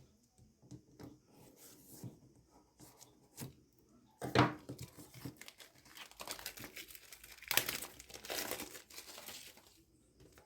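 Smartwatch packaging being unwrapped by hand. A few light clicks and taps come first, then crinkling and tearing of the wrapping for several seconds. The loudest moments are about four seconds in and again around eight seconds.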